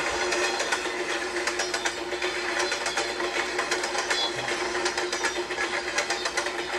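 Train wheels clicking over track joints in a fast, continuous clickety-clack, with a steady hum underneath.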